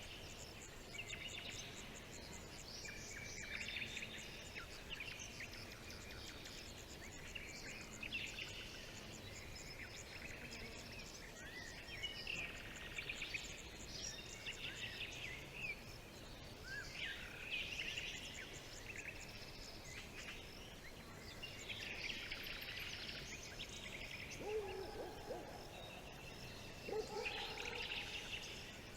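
Several songbirds singing, short high phrases coming every second or two and overlapping, over a faint steady hiss. Lower-pitched calls join near the end.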